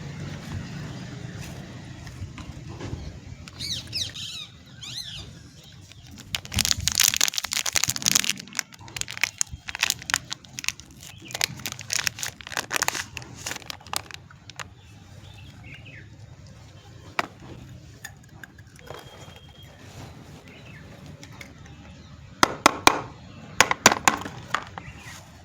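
Soap wrappers being unwrapped: bursts of crinkling and tearing of paper and plastic packaging with scattered clicks, loudest twice, about a quarter of the way in and again near the end.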